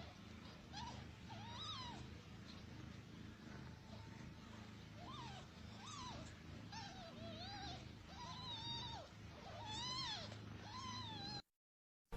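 Newborn kittens mewing: about ten short, high-pitched cries that rise and fall, over a low steady hum. The sound cuts off abruptly just before the end.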